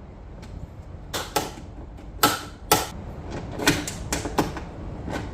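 A series of sharp, irregularly spaced clicks and knocks of hand work on a truck door's lock and trim parts, the two loudest knocks a little over two seconds in, half a second apart.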